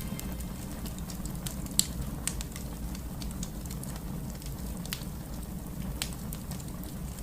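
Fireplace crackling, with scattered sharp pops (the loudest about two seconds in) over a steady low rumble.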